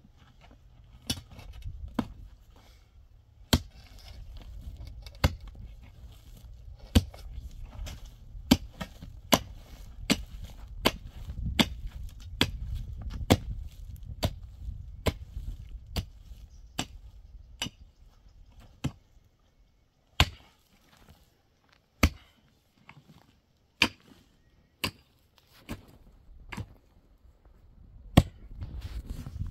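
Repeated sharp strikes of a hand tool being swung during building work, roughly one to one and a half a second over a low steady rumble. After about seventeen seconds the rumble stops and the strikes come more slowly, about one every second or two.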